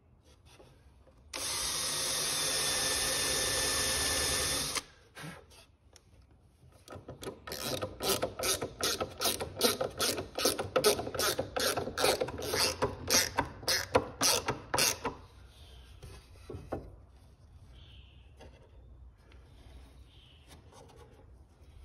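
Cordless drill running steadily for about three and a half seconds, boring a pilot hole in wood. A few seconds later a screw is driven in by hand with a screwdriver: a run of quick, sharp clicks, two or three a second, lasting about eight seconds.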